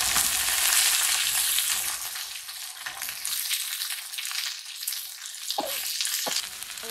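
Cubes of young green jackfruit sizzling in hot oil in a metal wok, stirred with a spatula at first. The sizzle is loudest over the first couple of seconds, then settles to a lower, steady frying hiss.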